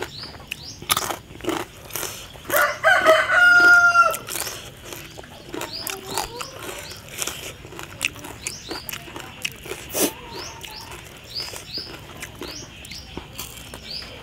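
A rooster crows once, about two and a half seconds in: a broken start, then a held, level note lasting about a second and a half. Around it come scattered short clicks and small chirps.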